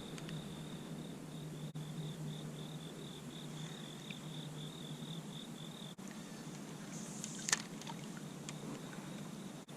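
Insects, crickets or similar, trilling steadily in a rapid pulsing chirp over a faint low hum. A single sharp click sounds about seven and a half seconds in.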